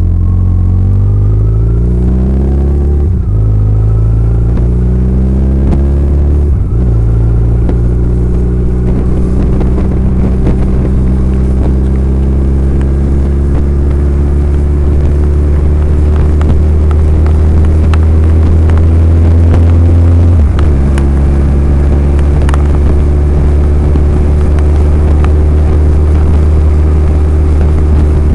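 Motorcycle engine on the move, pulling up through the gears: the revs rise and fall back at two upshifts in the first seven seconds, then hold steady at cruising speed, with a brief dip in revs about twenty seconds in.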